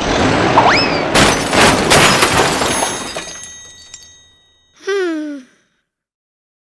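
A loud crash made of several sharp impacts, fading away over about three seconds. It is followed by a short voice-like call that falls in pitch, about five seconds in.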